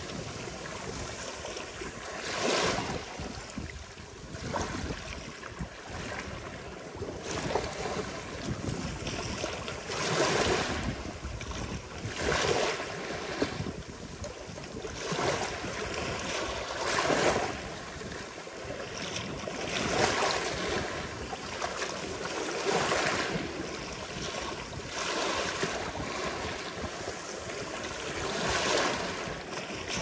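Ocean surf breaking on a beach: a steady wash of water with a louder rush every two to three seconds as each wave breaks.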